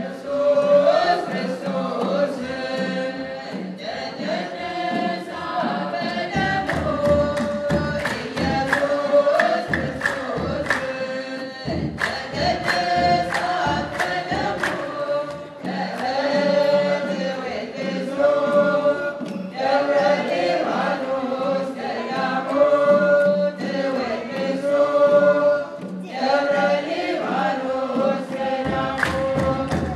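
Church choir singing an Ethiopian Orthodox Tewahedo mezmur (hymn), its sung phrases rising and falling over a steady beat of sharp strikes.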